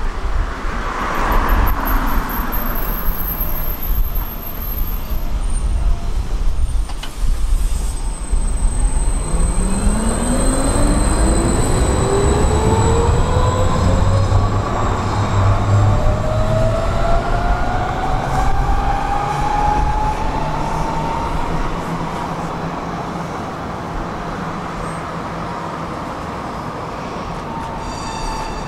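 Tram ride heard from inside the car: a steady low rumble of wheels on rails, with the electric traction motors whining in a smoothly rising pitch as the tram picks up speed. The sound eases off and gets quieter over the last few seconds.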